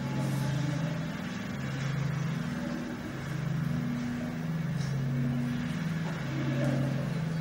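Low droning tones from the soundtrack of a video playing over the TV's speakers, several steady notes held together and swelling and fading in slow waves about once a second or so.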